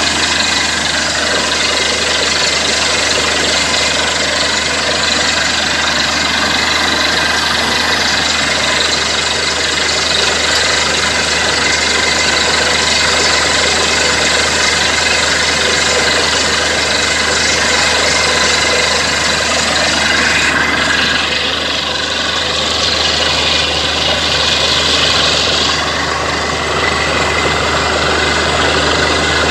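Borewell drilling rig running steadily: a loud engine hum under an even rushing noise, a little brighter for a few seconds past the middle.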